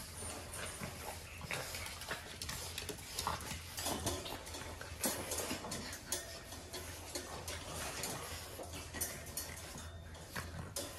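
French bulldog puppies scampering and wrestling on a tile floor, their claws making many quick, irregular clicks and taps.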